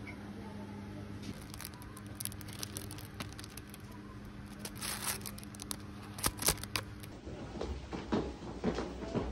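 Plastic packaging of hanging utensil packs crinkling and crackling in quick irregular clicks as they are handled, over a steady background hum. Near the end, irregular light knocks as items shift in a plastic shopping basket.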